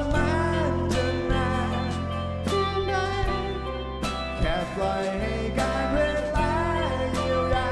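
Pop-rock song: a man sings over strummed acoustic guitar, with bass and regular drum beats.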